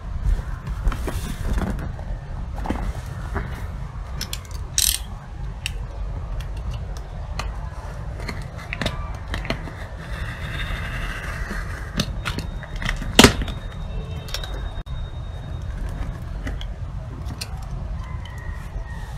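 Close handling of a cardboard shipping box: fingers scratching and tapping on the cardboard and its packing tape being cut and peeled, with a scraping stretch about ten seconds in and one sharp click a few seconds later, over a steady low rumble.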